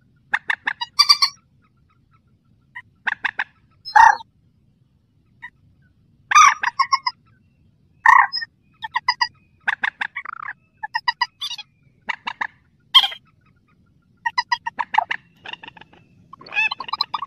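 Mandar sawah, a rail, calling: repeated short bursts of rapid pulsed notes, each burst under a second long, separated by pauses of about a second.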